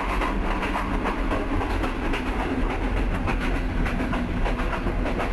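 Steady rumble of a CRRC Tangshan passenger coach running along the track, with frequent small clicks and rattles, heard inside the coach's toilet compartment.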